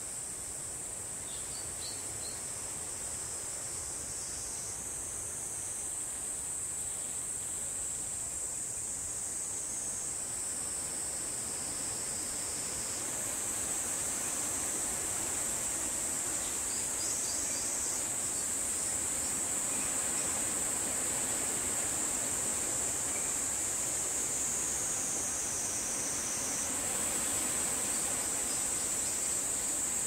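A chorus of insects singing: a steady high-pitched buzz that shifts slightly in pitch and level now and then.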